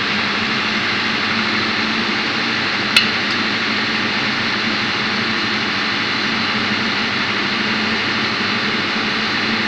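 Steady drone of running engine-room machinery, with one sharp metallic click about three seconds in.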